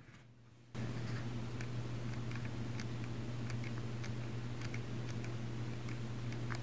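Canon XA20 camcorder's zoom being driven with its zoom rocker held down: a steady motor hum that starts suddenly about a second in, with faint irregular ticks from the rocker switch, which still makes a little noise after its repair.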